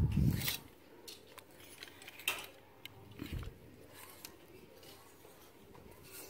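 Plastic clothes hangers clicking and sliding along a clothing rack as garments are pushed aside one by one, with a louder low rustle of clothing right at the start.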